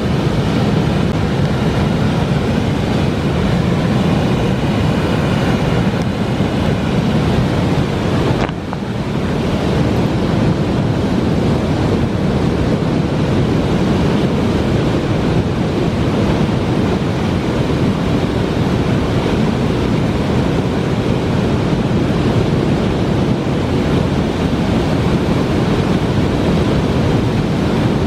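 Waterfall rushing over rock ledges: a loud, steady rush of whitewater, with a brief dip about eight seconds in.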